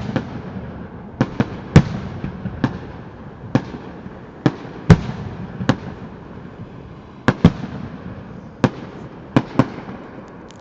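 Fireworks display: aerial shells bursting in a run of about fifteen sharp bangs at uneven intervals, with a low rumble trailing between them.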